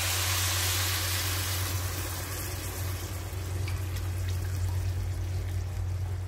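Meat broth poured from a glass bowl into a pan of rice, splashing and pouring. It is loudest in the first couple of seconds and then eases off as the bowl empties.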